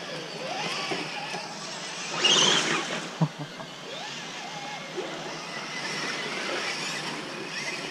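Traxxas TRX-4 radio-controlled scale crawler trucks driving through shallow stream water, the water sloshing and splashing. There is a louder splash about two seconds in and a sharp knock just after.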